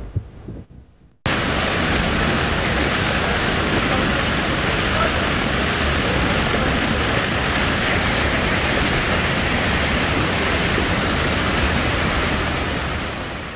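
Loud, steady rushing noise that starts suddenly about a second in, after music fades out. It turns brighter and hissier about eight seconds in, then fades away at the very end.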